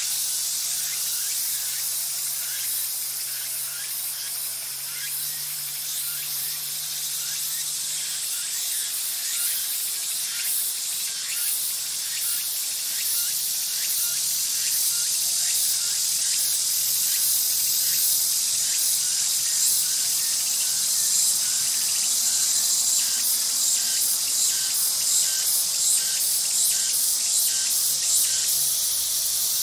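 Steady, shrill chorus of insects, a dense high-pitched hiss with fine rapid pulsing, growing a little louder about a third of the way in.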